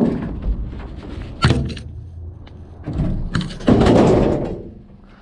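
Clanks and knocks of scrap metal being handled: a sharp knock at the start and another about a second and a half in, then a longer, louder scraping rattle of metal from about three seconds in.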